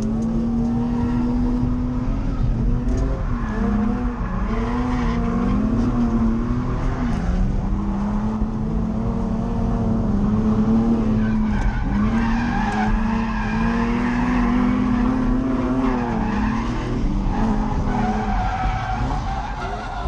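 Nissan 350Z's V6 engine revving hard while drifting: the revs are held high and keep dipping and climbing again every second or two. Tire skid noise runs underneath.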